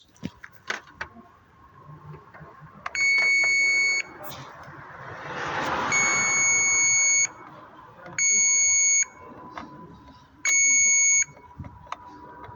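An electronic beeper sounding four long beeps at one steady pitch, each lasting about a second, spaced a couple of seconds apart. Light clicks and a brief swell of hiss come in between.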